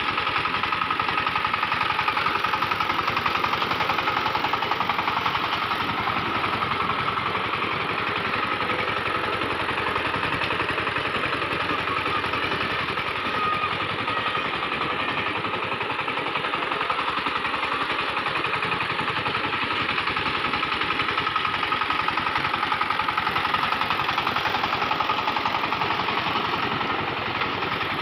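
SIFANG 20-horsepower power tiller's single-cylinder diesel engine running steadily under load as it puddles a flooded paddy field, with a fast, even beat.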